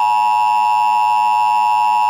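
Emergency Alert System attention signal: two electronic tones sounded together as one loud, steady, harsh beep, held without a break. It announces an emergency warning, here a severe thunderstorm warning.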